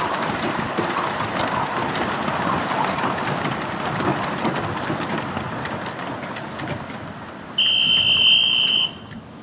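Miniature steam railway train's carriages rolling past on 7¼-inch-gauge track, a rapid clicking rumble of wheels on rail that slowly fades as the train draws away. Near the end, one steady, shrill steam whistle blast of about a second.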